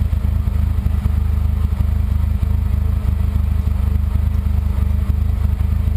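Jeep's four-cylinder engine idling steadily, heard close up from inside its roll-caged cab, with an even low pulsing hum.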